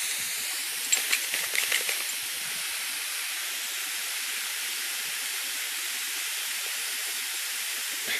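Garden hose spray nozzle hissing steadily as a jet of water sprays out, with a few short clicks between about one and two seconds in.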